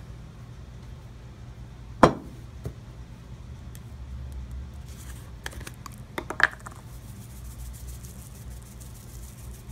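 Seasoning shakers and glass containers handled on a table: a sharp knock about two seconds in, then a few light clicks and a short ringing glass clink a little after six seconds, over a low steady hum.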